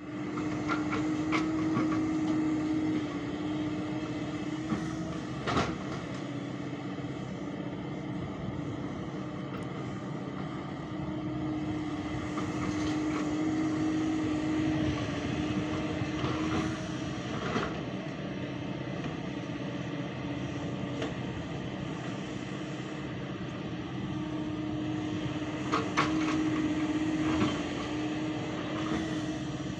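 Hyundai excavator's diesel engine running under hydraulic load through its dig-and-dump cycle. The engine note swells for a few seconds about every twelve seconds as the arm lifts and swings. Loads of earth go into a dump truck, and there are a few sharp clunks.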